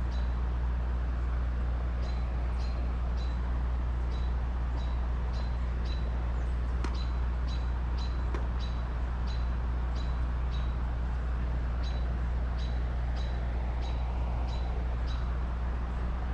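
A short, high chirp repeated about twice a second, over a steady rush of running creek water.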